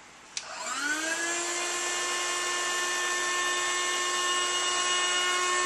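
A click, then a countertop vacuum sealer's pump motor starts about half a second in, rising in pitch over about a second to a steady whine as it sucks the air out of the bag.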